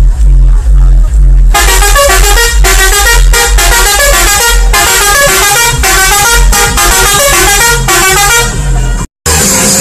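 A tourist bus's sound system playing loud music with heavy, chest-cracking bass beats in a steady rhythm; a high horn-like melody comes in over the bass about a second and a half in. The sound cuts out for a moment near the end.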